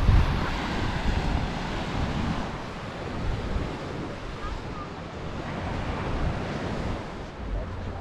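Surf washing onto a sandy beach, with wind gusting on the microphone.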